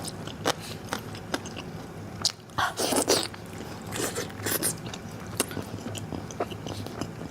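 Crisp golden crown melon being bitten and chewed with its skin on: a run of short crunches, with a louder crunch about three seconds in.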